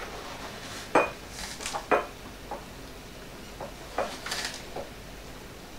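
A metal measuring spoon clinks and taps against glass jars and the salt box, with short hissing pours of salt between the taps. Two sharp clinks, about a second and two seconds in, are the loudest.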